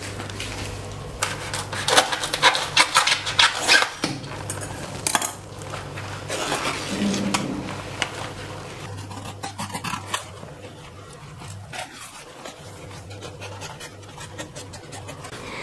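A large fresh banana leaf rustling and crackling as it is handled and spread out, then quieter scraping as a knife cuts it into pieces. A steady low hum runs underneath.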